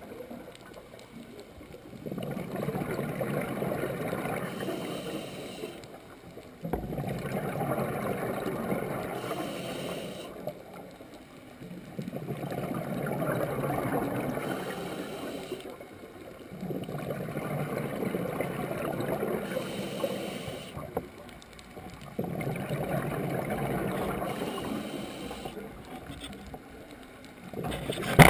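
Scuba diver's breathing through a regulator, heard underwater: exhaled bubbles rumbling in regular bursts of about three to four seconds, one every four to five seconds, with short quieter breaks for each inhale.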